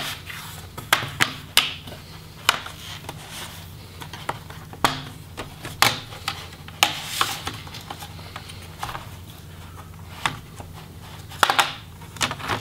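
Bottom case of a Samsung Chromebook XE525QBB being pried off with a spudger worked along the seam: a string of sharp, irregular clicks as the case's retaining clips snap free, with light scraping between them.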